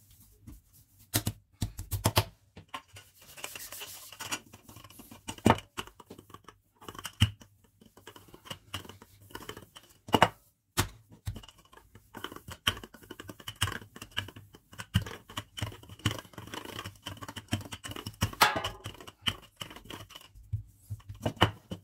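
Dough being pressed, slapped and rolled out on a tabletop with hands and a wooden rolling pin: irregular knocks and taps with scraping and rubbing between them.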